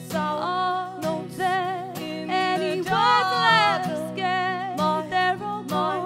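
Two women singing together over strummed acoustic guitars, their held notes wavering with vibrato.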